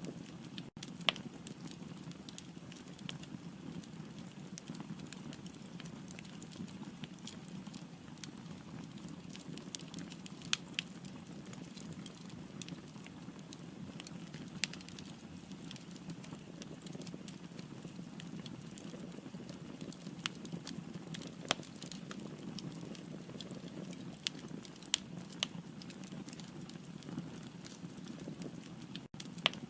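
Firewood burning in a fireplace: a steady low rush of flame with scattered sharp crackles and the occasional louder pop.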